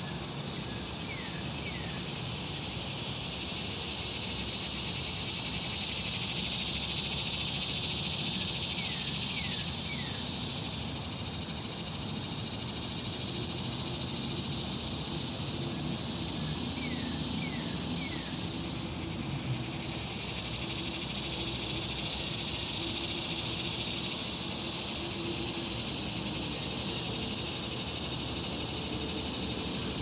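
Outdoor riverside ambience: an insect chorus makes a high, buzzing hiss that swells and fades in long waves. Over it, a bird gives two or three quick falling chirps about every eight seconds.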